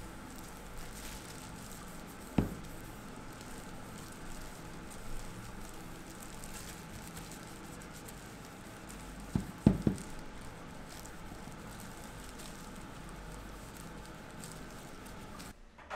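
Cloth rubbing an oil finish over a wooden chopping board, with plastic gloves crinkling. The board knocks on the work surface once about two seconds in and two or three times near ten seconds as it is turned over.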